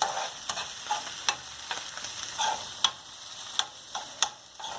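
Ground masala paste frying in hot oil in a pan, sizzling, while a spoon stirs it and knocks and scrapes against the pan about twice a second.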